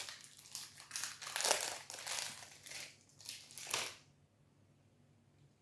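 Protein bar's plastic wrapper crinkling as it is handled, a run of rustles that stops about four seconds in.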